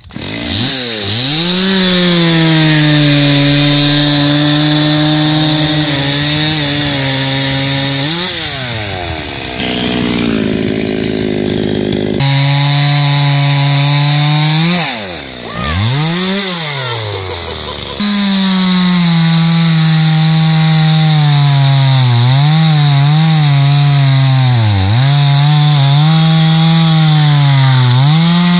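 Two-stroke chainsaw running at high revs and cutting through a log round, its pitch dipping and recovering several times as the chain bites into the wood and is eased off.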